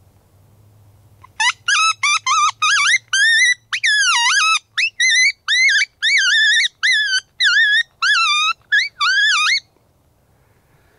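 Coyote yips and short howls blown on a predator call: a fast, loud run of about fifteen high cries that each rise and fall in pitch, starting about a second and a half in and stopping near the end.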